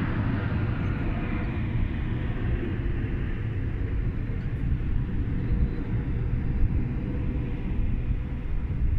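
Formation of jet aircraft passing overhead, their hissing roar fading away over the first few seconds and leaving a steady low rumble.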